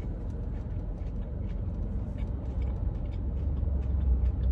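A person chewing a bite of a crispy fish sandwich, with faint irregular mouth clicks, over a steady low rumble inside a car's cabin.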